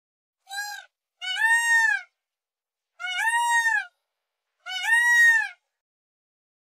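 Male Indian peafowl calling: four loud calls, the first short and the next three longer, about a second and a half apart. Each call rises at the start and falls away at the end.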